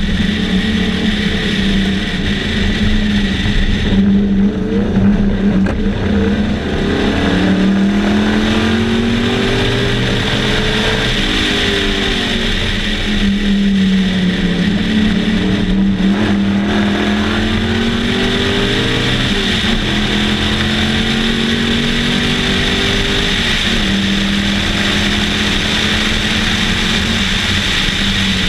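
Sunbeam Tiger's Ford V8 race engine running hard, heard from the open cockpit. Its pitch climbs under acceleration and drops back at upshifts or lifts a few times, over steady wind and road noise.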